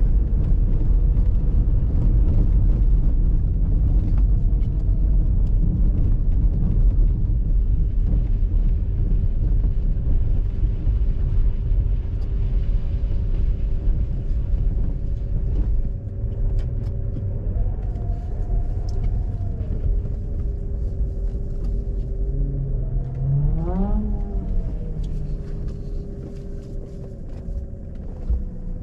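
Mazda RX-8's Renesis twin-rotor engine and the car's road rumble, heard onboard at track pace: a heavy low rumble with a steady hum. A little past two-thirds through, the engine pitch rises and falls again, and the sound eases off toward the end.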